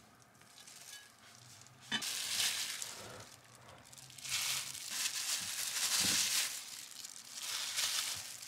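Crinkling and rustling of a thin plastic wrapper being handled, in two long stretches, with a brief soft knock in between.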